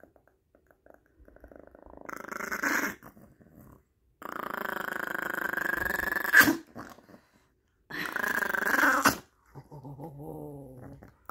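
Small Chihuahua growling in three spells, the middle one the longest, with a sharp click near its end: an angry warning growl with teeth bared.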